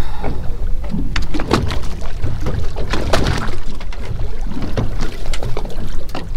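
Water sloshing and slapping against a boat's hull under a steady low rumble, with irregular knocks and splashes.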